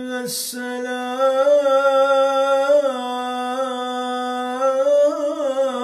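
A man's voice chanting the salā, the Arabic prayer on the Prophet called from a mosque, as one long sustained melismatic note with ornamental wavering turns, after a quick breath just after the start.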